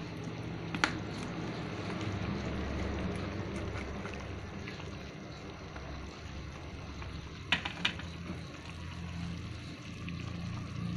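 Chicken adobo simmering in a metal wok over a steady low rumble, with sharp clinks of a metal spatula against the wok about a second in and twice near eight seconds. Near the end, water starts pouring in from a plastic bottle.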